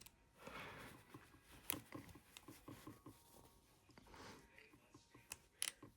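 Faint handling noise: a few light metallic clicks and soft rustling from handcuffs and a picking tool being worked, otherwise near silence.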